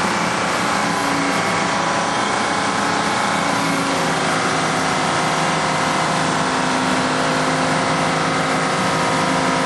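An engine running steadily at an even speed, a continuous mechanical drone with no revving or breaks.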